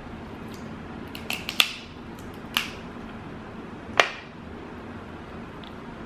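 Sharp cracks of snow crab leg shell being broken apart while eating: a quick cluster of snaps about a second in, another a second later, and a loud single crack about four seconds in, over a steady low hum.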